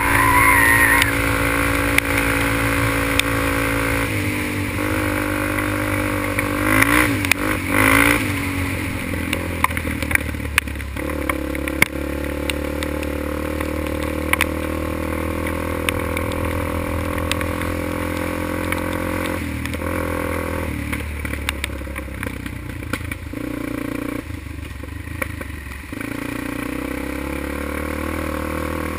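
Quad (ATV) engine running under throttle from the rider's seat, its pitch stepping up and down several times with throttle and gear changes. Short knocks and clatter from the machine on the wet, rough trail.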